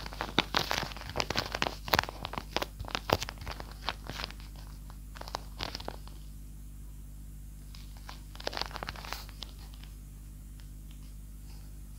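Paper crinkling and crackling as it is handled in quick bursts, dense at first and then in two shorter spells, over a faint steady hum.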